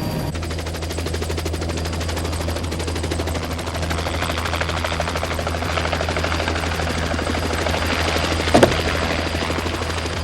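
Research aircraft, most like a helicopter, flying low with a rapid, even chopping beat over a steady low hum. A short, loud knock comes about eight and a half seconds in.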